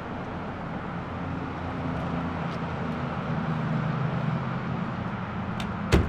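Outdoor traffic ambience with a steady low hum, and one sharp click near the end.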